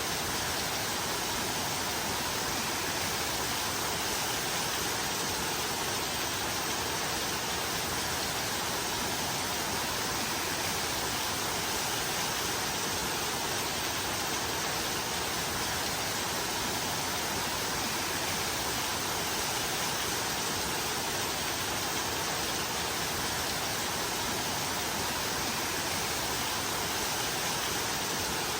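Steady rainfall, an even hiss of rain without distinct drops or thunder.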